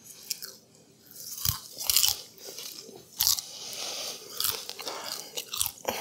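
A person chewing freshly microwave-popped popcorn, with irregular crisp crunches every second or so.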